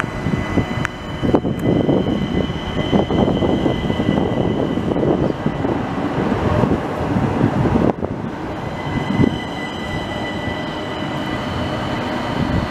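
Stadler Citylink tram-train rolling past close by: wheels rumbling on the rails with a steady high whine over them. The sound breaks off sharply about eight seconds in, then the tram is heard again, quieter, as it comes round a curve.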